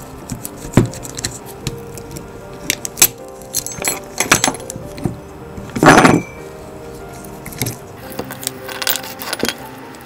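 Loose steel spokes clinking and jangling against a rusty bicycle rear hub as they are worked out of the hub flange: a string of short metallic clicks, with a louder rattle about six seconds in. Background music plays underneath.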